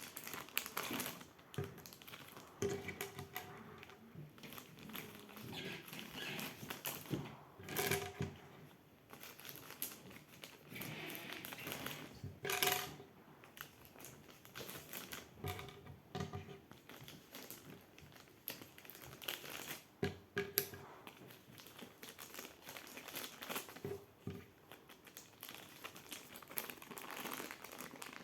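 Small plastic slime tubs being handled and packed back into their box: packaging crinkling, with irregular light clicks and knocks of plastic against plastic.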